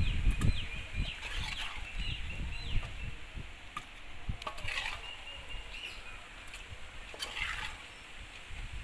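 A steel ladle scoops chicken gravy from an aluminium pot and tips it into a hollowed watermelon, giving brief wet scrapes and clinks about three times. Small birds chirp in the background, and there are low rumbling thuds near the start.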